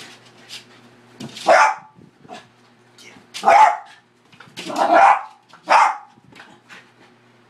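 Small dog barking sharply four times, in two pairs, while chasing and leaping at spots of light on a wall.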